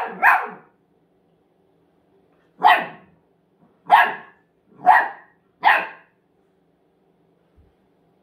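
Golden retriever puppy barking: two quick barks at the start, then, after a pause, four single barks about a second apart.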